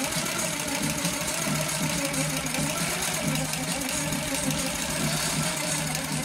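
Baby Lock Coronet longarm quilting machine running steadily, its needle stitching rapidly through the quilt layers as the quilt is guided under it.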